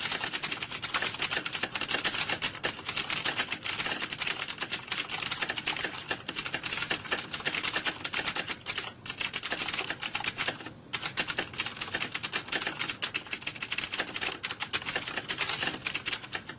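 Computer keyboards being typed on by many people at once, as in an exam-hall typing test: a dense, continuous clatter of key clicks, with two brief lulls around the middle.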